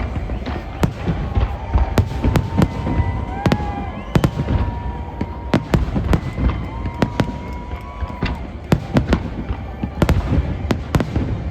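Fireworks going off in quick, irregular succession: many sharp bangs and crackles over a constant low rumble.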